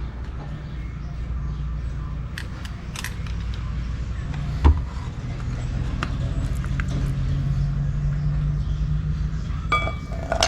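Light metal clicks and clinks as a snap ring is worked into place on a 42RE automatic transmission clutch assembly, over a steady low hum. There is one sharper knock about halfway through and a cluster of clinks near the end.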